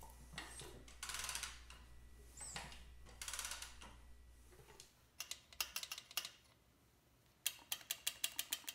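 Soft hiss swelling about every two seconds. From about halfway, two runs of quick, light metallic clicks as the tappet adjusters on the Vincent Rapide's valve gear are worked and the clearance checked by hand.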